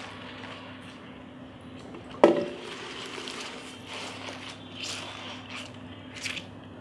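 Fresh leafy greens rustling and crumpling as they are pressed by hand into a cooking pot. About two seconds in there is one sharp knock that rings briefly, and a faint steady hum sits underneath.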